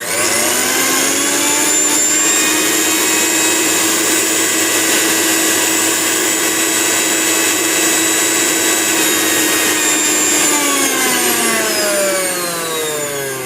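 Sujata 900-watt mixer grinder's motor switched on, spinning up within a second to a loud, steady high-pitched whine. About ten seconds in it is switched off and winds down, its pitch falling.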